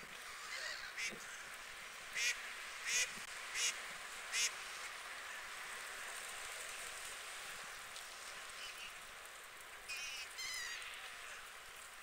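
Water birds calling off and on with short, high-pitched, harsh calls: a run of four evenly spaced calls in the first half, then a few more near the end, over a steady background hiss.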